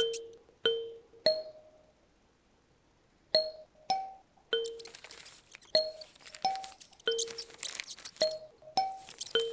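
Kalimba playing a slow melody of single plucked notes that ring and fade, with a pause of about two seconds near the start. A high rustling noise joins under the notes through the second half.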